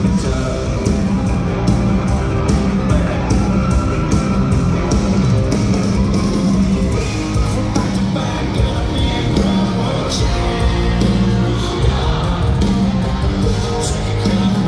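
Live country-rock band playing loud: electric guitars over a steady drum beat, with a man singing into a microphone.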